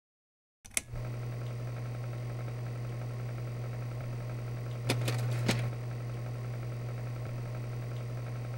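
A steady low hum that starts with a click just under a second in, with a faint hiss over it and three sharp clicks about five seconds in.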